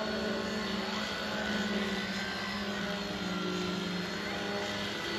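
Eachine E129 mini RC helicopter's electric motors and rotors whining steadily in flight, the pitch drifting slightly up and down, with wind on the microphone.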